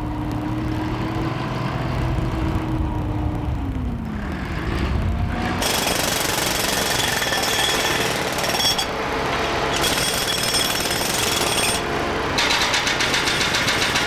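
Engine running with a steady tone that sags in pitch about four seconds in, then pneumatic jackhammers start hammering at the old road surface about five seconds in. The hammering eases briefly twice and carries on loud to the end.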